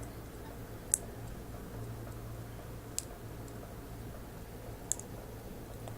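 Three faint, sharp clicks of plastic Lego pieces being handled, about two seconds apart, over a low steady hum.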